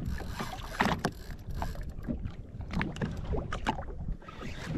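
Spinning reel's drag clicking in short, irregular runs as a hooked snapper pulls line against the bent rod, over wind and water lapping at the jet ski's hull.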